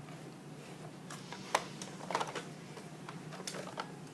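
Half a dozen irregular light clicks and knocks over a low steady hum.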